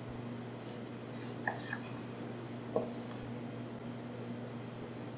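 A few faint short knocks from a chef's knife drag-cutting through a carrot on a wooden cutting board, over a steady low hum.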